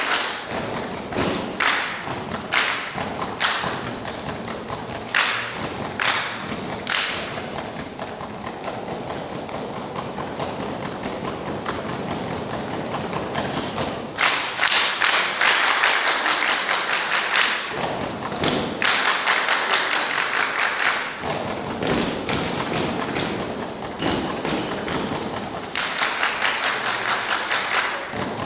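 A group performing rhythmic body percussion: hand claps and thumps in unison. At first there are single strokes about once a second, then stretches of fast, dense clapping.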